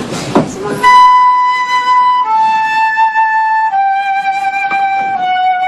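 Live solo instrumental music starting about a second in: a slow classical melody of long held notes, each stepping a little lower in pitch.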